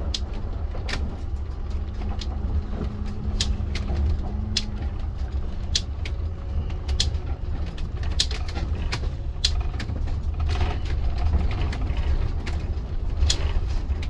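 Motorhome driving slowly over a rough dirt road, heard inside the cab: a steady low engine and road rumble with frequent sharp clicks and rattles from the cab jolting over the bumps.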